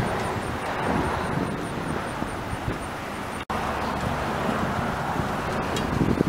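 Outdoor street ambience: wind buffeting the microphone over a steady rumble of traffic. There is a momentary dropout about halfway.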